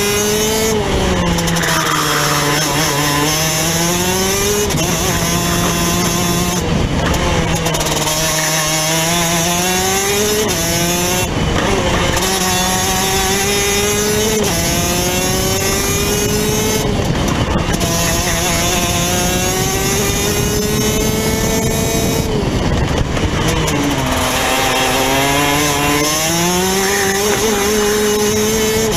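Rotax DD2 125 cc two-stroke kart engine at racing speed, heard from on board: the revs fall sharply into the corners and climb again along the straights, with a few sudden steps down in pitch.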